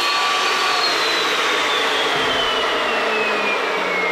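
Evolution S380CPS dry-cut metal chop saw, its carbide-tipped blade freshly through 2-inch square steel tubing. About half a second in, the motor starts winding down: a whine that falls steadily in pitch as the blade coasts to a stop.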